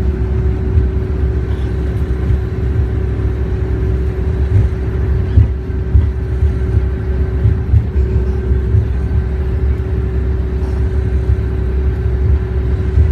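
Steady engine and road rumble heard from inside a moving bus, with a constant hum over it and a few light knocks.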